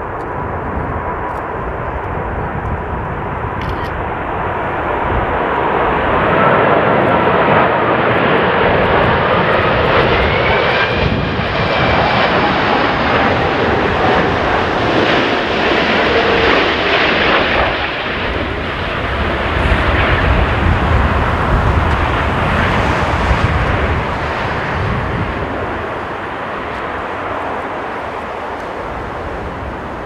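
Airbus A380-841's four Rolls-Royce Trent 970 turbofans on final approach, passing close by: steady jet engine noise that swells after about six seconds, stays loudest through the middle with a whining tone gliding up and then down, and eases off near the end.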